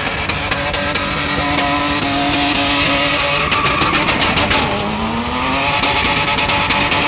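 A large 4x4 SUV's engine held at high revs while it spins donuts, its tyres spinning and smoking on the pavement; the revs dip and climb again about five seconds in.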